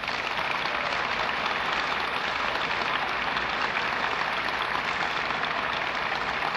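Large audience applauding steadily, a dense crackle of many hands clapping at once.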